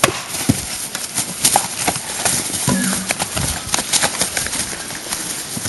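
Rapid, irregular knocks and thwacks of a staged fist fight: blows and bodies hitting the ground, with a brief shout about three seconds in.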